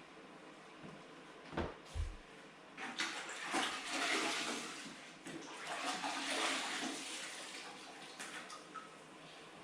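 Water splashing and sloshing, after two dull thumps about one and a half and two seconds in.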